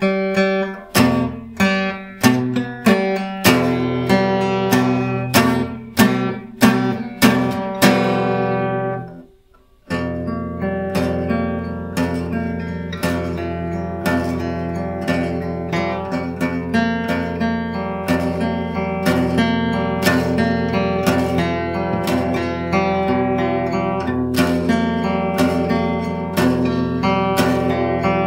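Acoustic guitar playing a blues: loud single chords struck one after another and left to ring out, a short break about nine seconds in, then a steady, busier picked rhythm.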